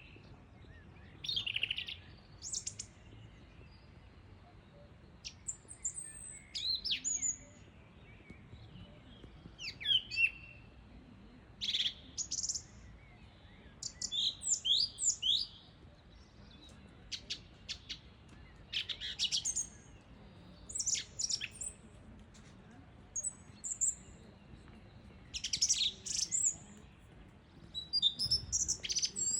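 Song thrush singing: a series of short, varied, high-pitched phrases, many made of a note repeated several times in quick succession, with brief pauses between phrases.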